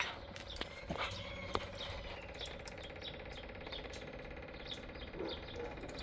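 A small bird chirping over and over, short falling chirps a couple of times a second, over a steady hum. A few light knocks come in the first couple of seconds.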